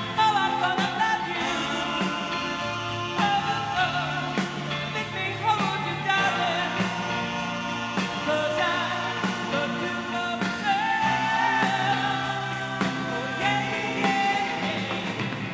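Live rock-and-roll vocal group performance: a lead singer singing a melody over a band of electric guitar, keyboard and drums.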